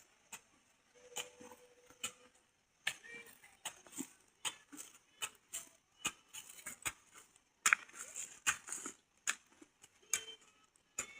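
Faint, irregular chops and scrapes of a hand hoe working soil while ridges or terraces are being shaped.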